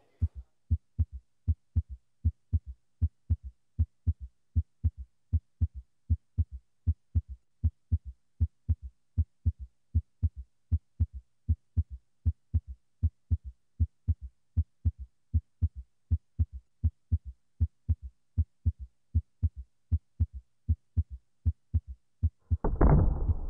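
Heartbeat sound effect: evenly spaced dull, low thumps, about two or three a second, with nothing else under them. A sudden loud noise breaks in near the end.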